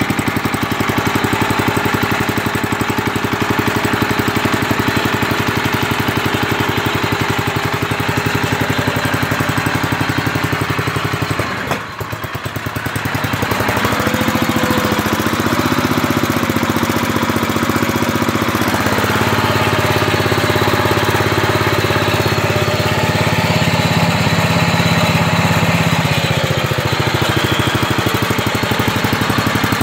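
David Bradley walk-behind tractor's small air-cooled engine running steadily with a fast, even firing beat. The sound dips briefly about twelve seconds in, then carries on.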